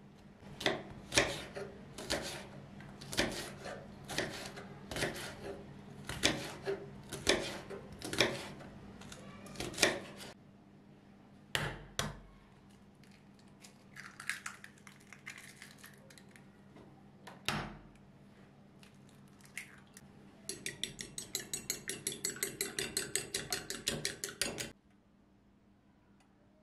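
A kitchen knife chopping long green peppers on a wooden cutting board, a steady series of chops about two a second for some ten seconds. Then two sharp knocks and some handling noise, followed by about four seconds of fast, even clicking of a utensil beating in a small ceramic bowl, which stops abruptly.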